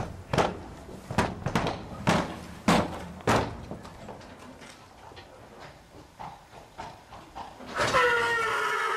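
Horses in box stalls: sharp knocks and bangs against the stall boards, six loud ones close together, then fainter scattered knocks. Near the end a horse starts to whinny.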